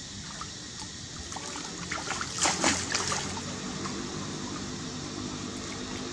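Macaques swimming and splashing in water over a steady wash of moving water, with a short flurry of louder splashes about two and a half seconds in.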